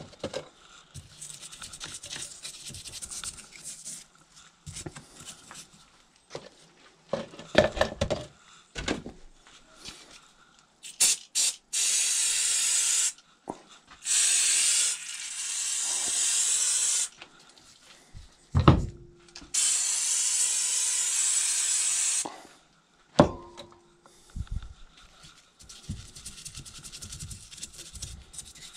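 Aerosol degreaser spray can hissing in three or four long bursts through the middle, sprayed onto a moped engine casing. Before and after, a brush scrubs the greasy casing with light scratchy rubbing, and there are two sharp metallic clinks.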